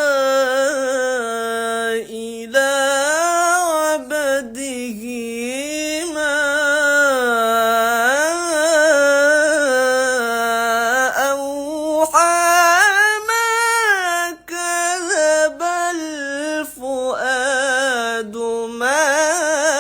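Melodic Quran recitation (tilawah) by one unaccompanied voice: long, ornamented notes that slide and waver up and down in pitch, with a few short pauses. The reciter has a cold and cough.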